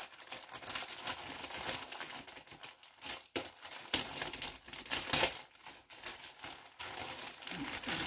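Clear plastic packaging crinkling and rustling as hands pick at it and pull it open around a boxed model horse. There is a run of uneven crackles, with several sharper, louder ones about halfway through.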